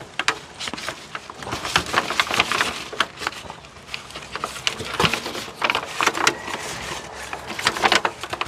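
Aluminium foil pan crinkling and crackling in irregular clusters as seasoned fish is rolled around in it.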